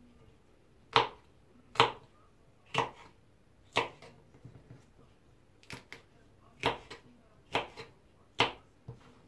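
Kitchen knife cutting a green bell pepper on a wooden cutting board: sharp knocks of the blade striking the board, about eight in all, roughly one a second.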